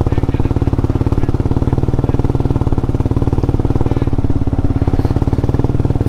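Motorcycle engine running at a steady speed while riding, with an even, fast exhaust pulse and no change in pitch.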